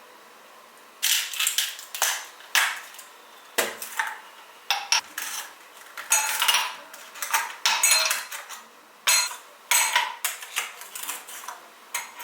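Dishes and cutlery being handled: an irregular series of sharp clinks and clatters of plates and metal utensils, starting about a second in.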